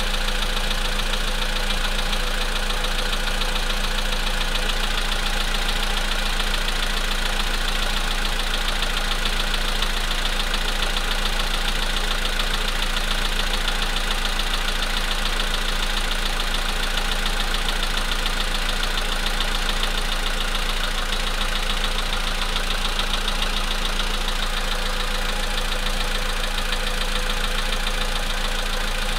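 Volkswagen Polo sedan engine idling cold with a steady, rapid knocking. The knock appears only when the engine is cold and has been getting worse over time.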